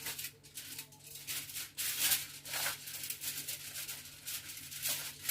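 Crinkling and rustling of a sheet of wrapping being handled and pressed over a ham to cover it lightly, in uneven rustles with a few louder crinkles.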